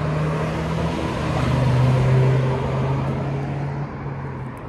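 A motor vehicle driving past, its engine hum growing louder toward the middle and fading near the end, with a drop in pitch about a second in.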